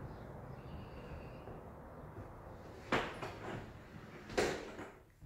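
Two sharp knocks about a second and a half apart over faint room noise.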